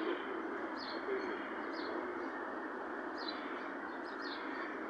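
Small birds chirping: short, high chirps about once a second over a steady background hiss.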